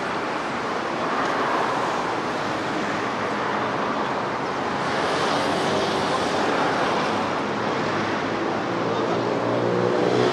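Steady roar of heavy multi-lane highway traffic, tyres and engines blending together. Near the end a nearby heavy vehicle's engine hum rises above the traffic.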